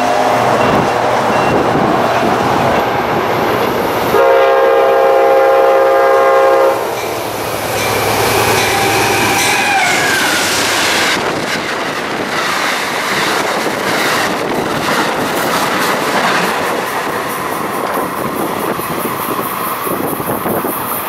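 Amtrak passenger train passing at high speed. The diesel locomotive's multi-chime horn sounds one long blast of about two and a half seconds, some four seconds in. Then comes the rush of the passing cars, with the clickety-clack of wheels over the rail joints.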